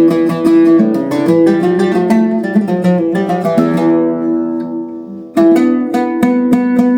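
Oud being played: a quick run of plucked notes that rings away to a pause about five seconds in, then the playing starts again.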